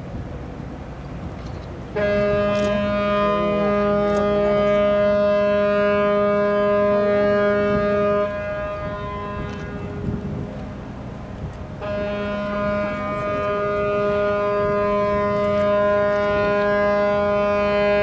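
Camellia Maru's ship horn sounding two long, steady, deep blasts. The first starts about two seconds in and lasts about six seconds; the second begins about four seconds after it ends and carries on to the end.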